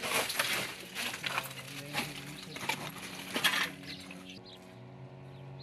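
Clinks and knocks of rubble and debris being moved, loudest in the first three seconds, over a steady low hum.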